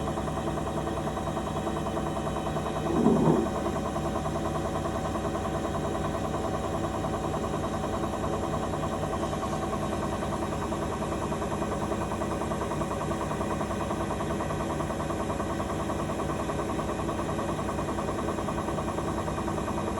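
TCL TWOF-607W10W1 washing machine running, its drum knocking in a fast, steady rhythm, with one brief louder sound about three seconds in. On this brand-new machine the owner hears the drum knock and run out of true, as if something is catching; the service centre calls it normal operation.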